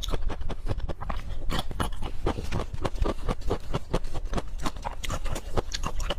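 Close-miked chewing and wet mouth smacking while eating spicy pork leg curry with rice, several quick clicks a second.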